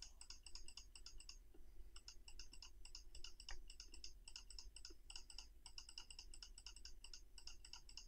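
Faint, rapid clicking at a computer, about six clicks a second, with a brief pause about one and a half seconds in.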